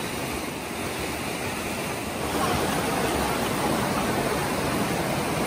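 Mountain creek rushing over rocks, a steady rush of water that grows louder about two seconds in.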